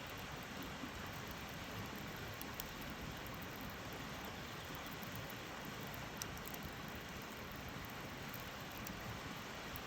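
Wood campfire burning: a steady hiss and crackle with a few sharp pops.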